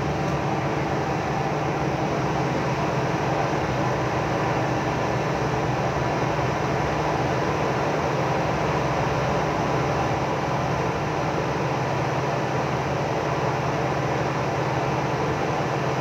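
Crew boat's engines and onboard machinery running steadily: a constant low drone with a steady hum.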